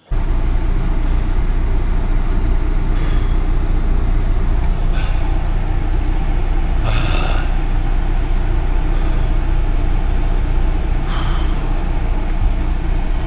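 Heavy truck's diesel engine running with a steady low rumble, with a few short hissing bursts over it.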